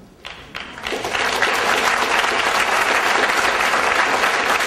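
Audience applauding: a few scattered claps about a quarter second in, swelling within a second into steady, full applause.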